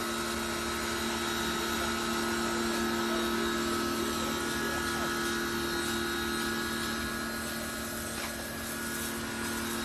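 Paxcess 2150 PSI electric pressure washer's 1800-watt motor and pump running steadily: a constant hum over an even hiss.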